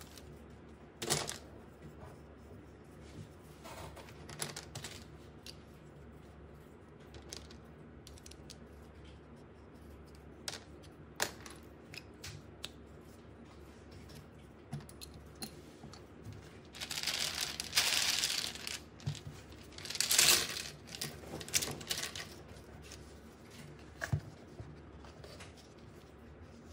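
Hands unboxing and handling a puzzle toy: scattered light clicks and taps of small pieces, with two longer bursts of crinkling packaging about two-thirds of the way through.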